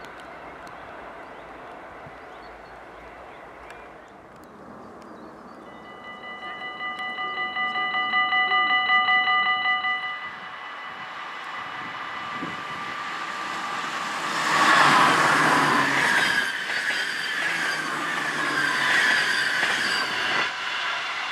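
Dutch electric multiple unit passing at speed: rush of wheels and running gear with a whining squeal, loudest a little past the middle. Before it, a loud pitched warning tone pulses rapidly for about four seconds and stops.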